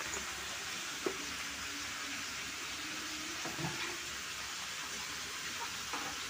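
Steady sizzling hiss of food frying in a pan, with one sharp clink about a second in.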